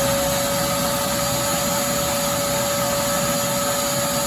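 Electric oil extraction pump running at a steady speed, a loud whine over a noisy whir, sucking the old engine oil out of a small mower engine through a hose.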